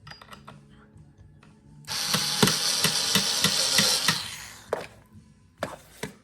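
Power drill driving a small screw for about two seconds, with a regular ticking through the run, then winding down. A few sharp clicks follow near the end.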